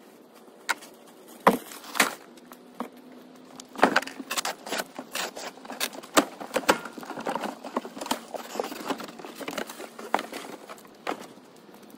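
Trash bags, cardboard and household junk being loaded onto the bed of a truck: an irregular run of knocks, thumps and clatters with crackly rustling between them, the sharpest hits in the first six seconds, dying away near the end.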